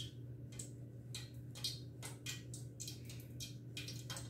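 Breadcrumbs and crushed appalam (papad) crackling and crunching under a hand as a rice ball is rolled and pressed in them, a run of soft, irregular crackles.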